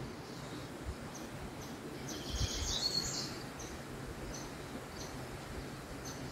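Birds chirping outdoors in short high calls about once a second, with a louder, rapid chattering burst about two seconds in that lasts about a second, over steady low background noise.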